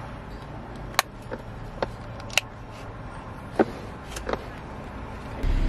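Child car seat harness being fastened: the buckle tongues, chest clip and straps give several sharp, separate clicks. Near the end a steady low car rumble starts abruptly.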